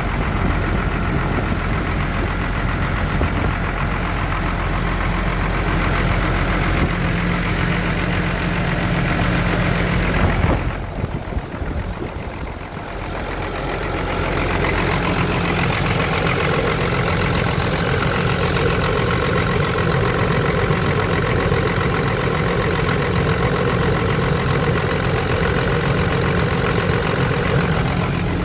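Ford F-700's 6.6-litre turbo diesel running at a steady idle after a long time out of use. The sound briefly goes quieter and duller for a couple of seconds about eleven seconds in, then returns to the same steady idle.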